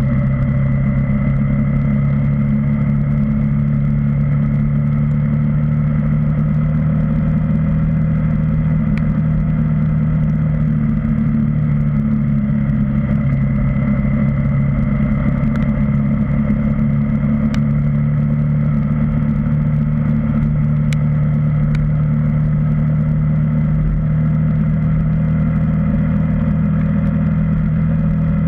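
KTM Duke 390's single-cylinder engine running at a steady cruise, heard from a camera mounted on the motorcycle, with no revving up or down. A few faint ticks sound now and then over it.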